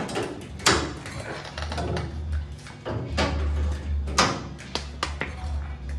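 Locking clamps being set on a steel cowl vent panel to hold it to the car's firewall: a series of sharp metal clicks and clanks, about half a dozen, over a low rumble.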